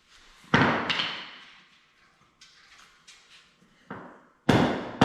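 Hammer blows smashing a cable crimp flat on a 200-pound capacity cable: one loud strike about half a second in, then a lighter strike and a second loud strike near the end.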